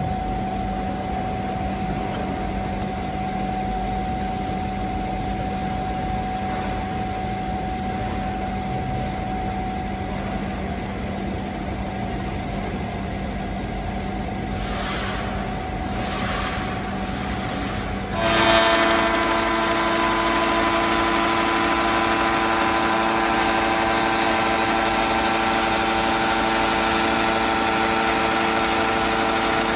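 Electric motor of an NKO UZ50 Triumph plate bevelling machine running with a steady hum. About 18 seconds in the sound steps up suddenly, louder and with a different set of steady pitches, and holds there.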